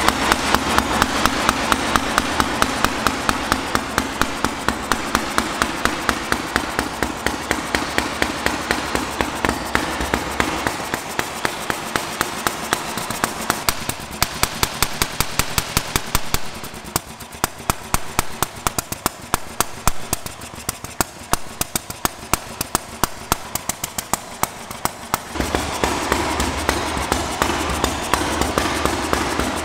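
Vintage Moto Guzzi horizontal single-cylinder engine running at idle, each firing stroke a distinct, evenly spaced knock. The deep part of the sound fades for a long stretch in the middle and comes back near the end.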